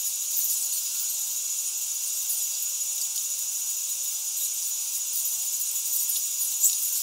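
Steady high-pitched hiss with a thin, steady high whistle running through it and a few faint ticks.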